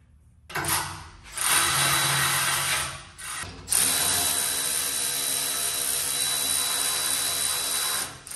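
Handheld electric power tool running in the work of mounting the radiator: two short runs in the first three seconds, then one long steady run of about four and a half seconds that stops just before the end.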